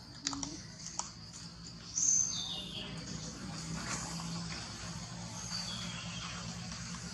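Forest ambience: a steady insect haze with a few high bird whistles that fall in pitch, the loudest about two seconds in. A couple of soft clicks in the first second.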